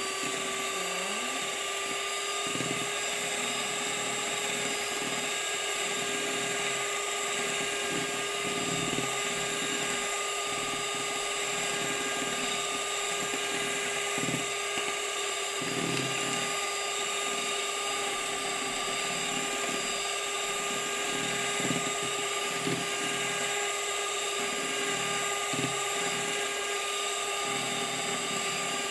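Electric hand mixer running steadily, its beaters whipping egg whites and cream of tartar into meringue in a plastic bowl. The motor's even whine holds, with an uneven low churning as the beaters move through the bowl.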